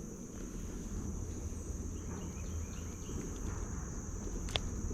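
Steady high-pitched chirring of insects, over a low rumble, with one sharp click about four and a half seconds in.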